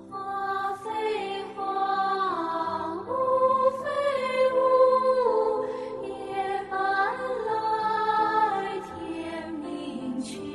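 Background music: a slow melody whose notes slide from one pitch to the next, held over steady chords.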